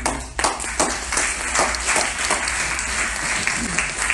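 Audience applause that breaks out suddenly and keeps up steadily.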